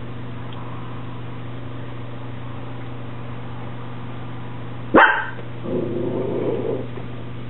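A dog barks once, sharply, about five seconds in, then gives a softer, wavering call lasting about a second. A steady low hum runs underneath.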